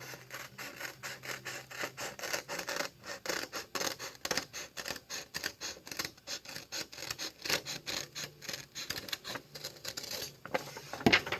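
Scissors cutting construction paper: a rapid run of short crisp snips, about three to four a second, with a louder knock near the end.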